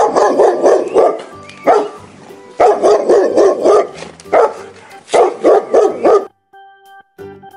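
Dog barking repeatedly in quick runs of several barks, with pauses between the runs. The barking stops a little after six seconds in.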